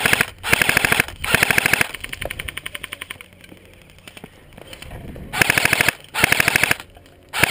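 Airsoft gun firing on full auto in short, rapid bursts close by: three bursts in the first two seconds, a lull, then two more and another starting at the end.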